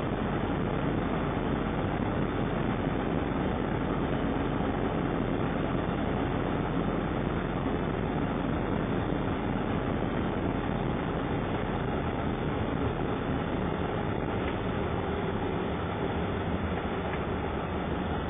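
Ambulance driving on a snow-covered road, heard from inside the cab: a steady rumble of engine and tyre noise that eases a little near the end as the vehicle slows.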